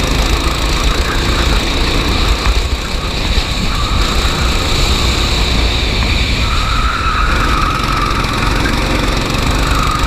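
Racing go-kart engine running at speed with a heavy, steady rumble; its higher engine note grows louder and rises a little about two-thirds of the way through.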